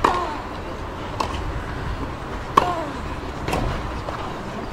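Tennis ball struck back and forth by rackets in a rally, a sharp hit about every second and a quarter, some hits followed by a short voice sound falling in pitch.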